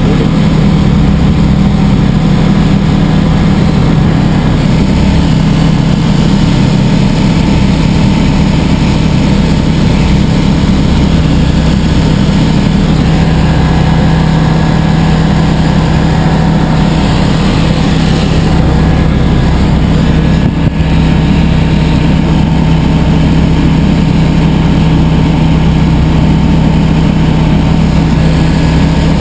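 Diamond DA20 light aircraft's piston engine and propeller running at a steady cruise, heard inside the cockpit as a loud, even drone.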